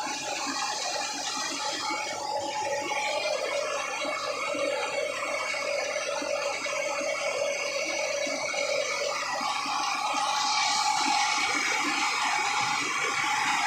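Tractor-driven rice mill running steadily while milling paddy, a continuous rattling machine noise with a steady hum, getting a little louder about ten seconds in.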